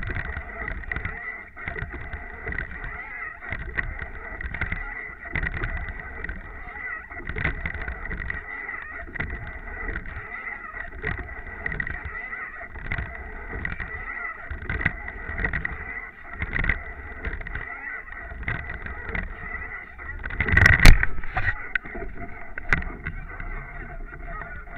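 Water rushing along the bow of a racing rowing eight under way, with wind buffeting the bow-mounted microphone and surging unevenly, under a steady high tone. A loud burst stands out about three-quarters of the way through.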